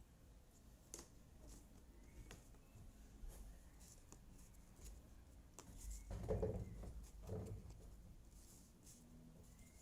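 Faint clicks and light rustling of cardboard jigsaw puzzle pieces being handled, with a louder, duller rustle about six seconds in.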